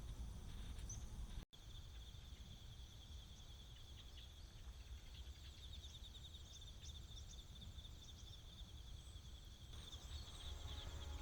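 Night insects, crickets or similar, chirring steadily in a high, rapidly pulsing drone over a low outdoor rumble. Music comes in near the end.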